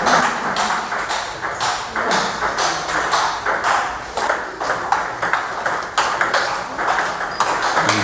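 Table tennis rally: the ball clicking sharply off the bats and the table in quick, irregular succession, with clicks from other tables in play overlapping.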